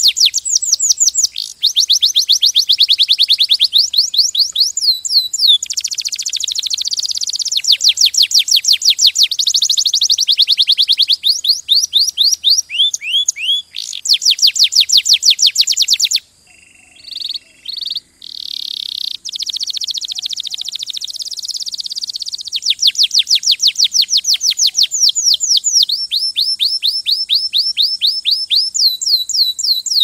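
Domestic canary singing: long rapid trills of repeated high, downward-sweeping notes, phrase following phrase, with a brief lull about two-thirds of the way through.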